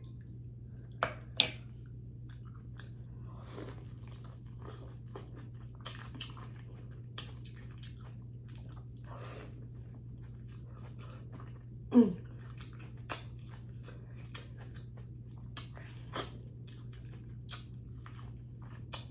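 Close-up chewing of seafood-boil food, with scattered wet mouth clicks and smacks over a steady low hum. A brief falling voice sound, like a short 'mm', stands out about twelve seconds in.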